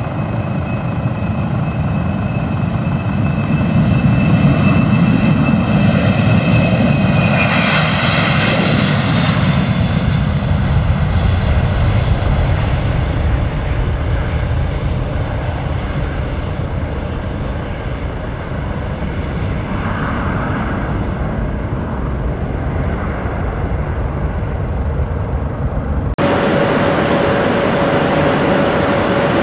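Boeing P-8A Poseidon's twin CFM56 turbofan engines at takeoff power as the jet rolls and climbs away: a high whine over a rumble, loudest about eight seconds in, then slowly fading. About three seconds before the end it cuts suddenly to the steady hum of the flight deck in flight, with one constant tone.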